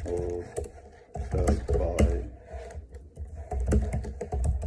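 Keys clicking as someone types on a computer keyboard, in irregular runs of keystrokes.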